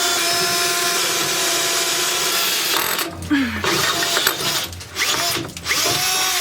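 Power drill boring into the bus's metal frame: a steady high whine for about three seconds, then stopping and starting in short bursts.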